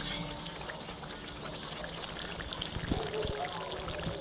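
Braising sauce bubbling and sizzling in a wide cast-iron pot over a fire, a steady crackling hiss with scattered small pops. A couple of dull knocks about three seconds in.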